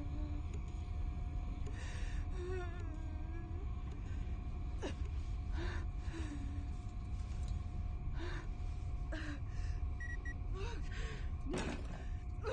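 A woman gasping and whimpering in ragged breaths, about one a second, with short strained vocal sounds between them, over a steady low rumble and a faint high hum.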